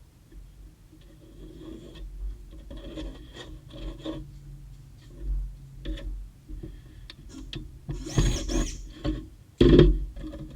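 Scraping and rubbing with scattered short knocks, as of tools and parts being handled. A denser burst comes near the end.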